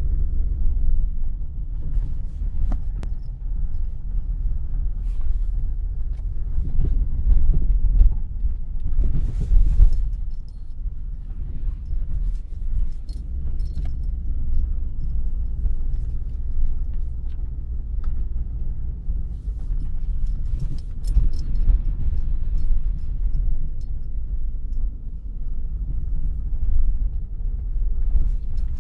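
Car driving on a rough gravel track, heard from inside the cabin: a steady low rumble of engine and tyres, with scattered clicks and knocks from stones and bumps.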